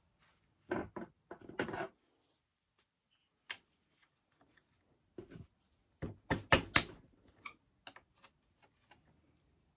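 Scattered clicks and knocks of a tool and metal parts being worked into the folding-pedal hinge of a Veteran Sherman S electric unicycle, with a cluster of sharper, louder knocks about six seconds in.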